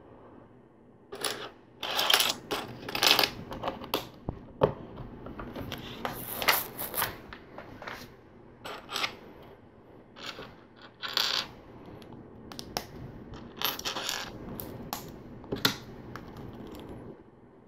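Plastic LEGO pieces clicking and clattering as they are picked from a loose pile, handled and pressed together, in irregular sharp clicks.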